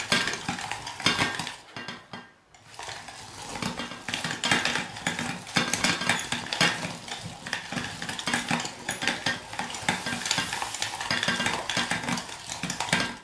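Hand-cranked stainless steel food mill turning, its blade scraping against the perforated disc as it purées fried green peppers: a continuous run of short metallic scraping strokes, with a brief break about two seconds in.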